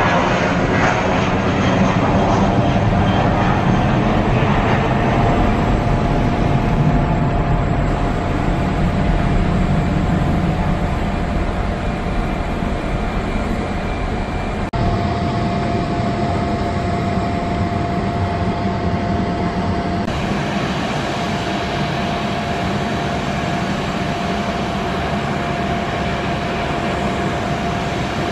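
Airbus A320-family jet engines at takeoff power: loud, steady jet noise with a held whining tone as the airliner rolls and climbs away. The sound changes abruptly about fifteen and twenty seconds in, and the steady jet noise carries on with another airliner coming in to land.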